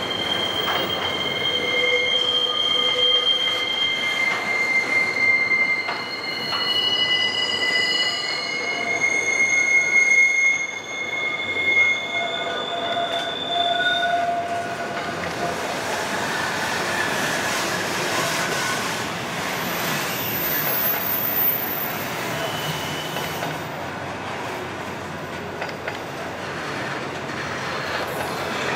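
Container wagons of a freight train rolling past on a curve, the wheels squealing in several high tones that come and go. The squeal is thickest through the first half; later it is mostly the rolling noise of the wagons, with an occasional squeal.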